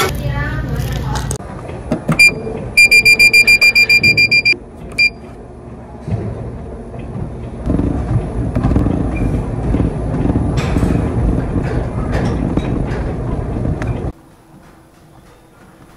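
A rapid run of about a dozen short electronic beeps, roughly seven a second, from a self-service drink and ice dispensing machine. Later comes the steady whirring rumble of a running gym exercise machine, which cuts off suddenly near the end.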